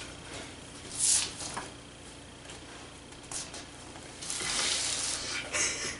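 Stifled, breathy laughter: air hissing out through the nose and teeth in bursts, a short one about a second in and a longer one in the second half.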